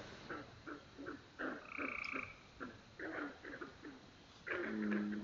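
Swamp frogs calling: a run of short croaks about three a second, with a steady higher note about two seconds in and a lower, held call setting in near the end.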